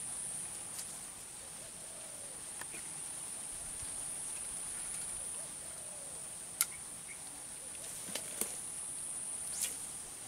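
Insects chirring in a steady high-pitched drone over flooded grassland, with a few sharp clicks in the second half.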